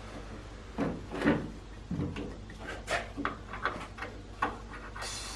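Irregular clicks and knocks of a plastic push-mower wheel being worked onto its axle by hand, with light taps as its hub is pressed on.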